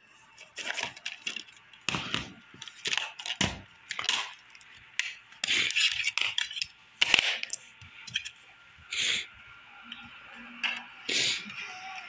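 Plastic DVD case being handled and opened, with the disc pried off its centre hub: a string of sharp plastic clicks, snaps and rattles, thinning out over the last few seconds.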